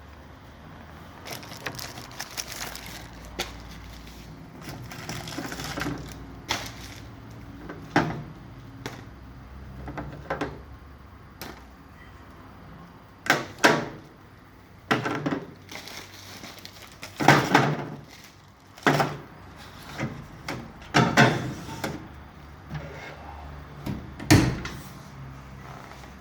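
Öztiryakiler commercial glass-washing machine being handled: a long, irregular series of knocks, clatters and short bangs, sparse at first and louder and more frequent in the second half.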